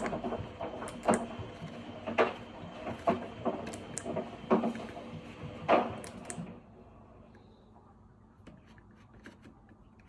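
Rotary selector dial of a Miele washing machine being turned through its settings: sharp clicks, about one a second for the first six seconds, then a quieter stretch with a few faint ticks.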